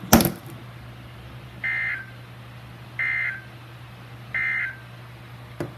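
A loud click, then three short bursts of Emergency Alert System digital data tones, each lasting a fraction of a second and coming about 1.3 seconds apart. This is the end-of-message signal that closes a NOAA Weather Radio flash flood warning, heard over a steady low hum.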